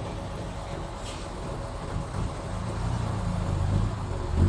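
Mitsubishi bulldozer's diesel engine running steadily, growing louder in the second half.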